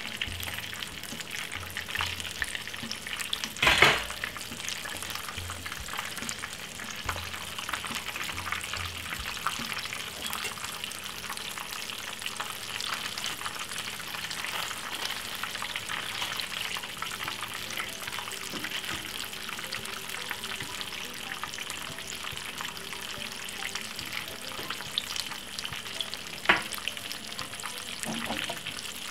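Coated salmon pieces shallow-frying in hot oil in a frying pan: a steady sizzle full of small crackling spatters. A metal spatula knocks sharply against the pan about four seconds in, and once more, more lightly, near the end.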